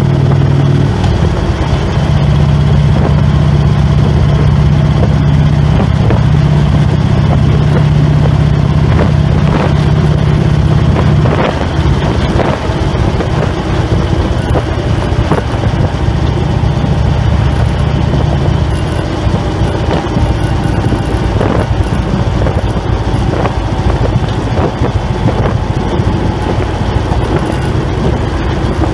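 Harley-Davidson Road King's V-twin engine running under way at a steady cruise, with wind and road noise. About twelve seconds in the engine note drops and gets a little quieter.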